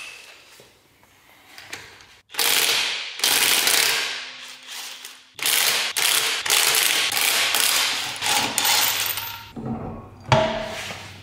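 Cordless impact wrench hammering car wheel lug nuts loose, in a burst starting about two seconds in and a longer run after a short pause. A sharp knock near the end.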